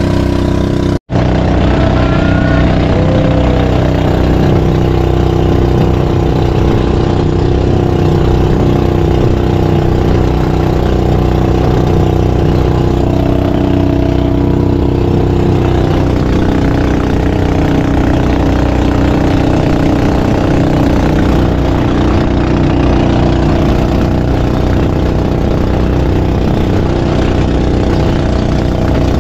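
Motorized outrigger boat's engine running steadily at cruising speed, with water rushing along the hull. The sound cuts out for an instant about a second in.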